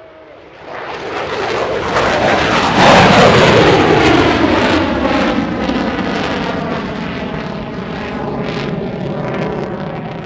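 F-22 Raptor fighter jet's twin afterburning turbofan engines passing by loud. The jet noise builds over about two seconds and peaks about three seconds in, with a whine that falls in pitch as the jet goes past. It then slowly fades.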